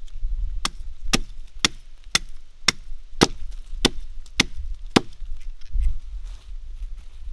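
Axe chopping into a fallen log: nine sharp blows, about two a second, that stop about five seconds in.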